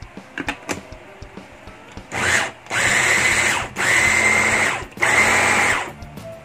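Small electric food processor pulsed four times, each burst about a second of steady motor whine, its blades chopping raw cauliflower into rice-sized bits. Before the pulses come a few light plastic clicks as the motor head is set onto the bowl.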